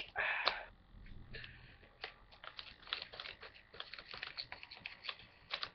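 A plastic blind-bag mystery pack being opened and handled, quietly crinkling, with scattered small clicks and crackles.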